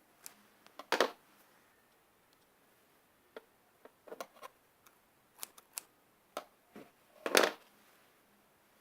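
Scissors cutting into a foam squishy toy: scattered small snips and handling clicks, with two louder, longer cuts about a second in and again near the end.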